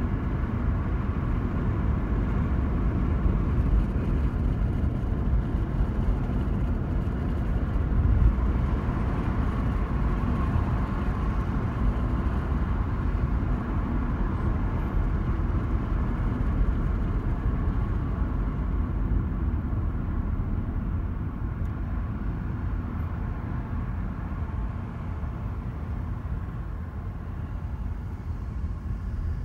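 Steady low rumble of a car driving, heard from inside the cabin: tyre and engine noise. It gets a little quieter about two-thirds of the way through.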